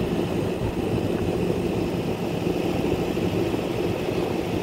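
Heavy engine idling steadily: a constant low hum with a faint, even, high whine above it.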